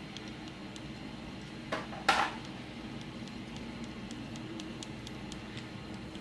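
A stir stick tapping and scraping against the inside of a small clear cup while blue paint is stirred into fabric medium: light irregular clicks throughout, with two louder knocks a little over a second and a half and about two seconds in. A steady low hum runs underneath.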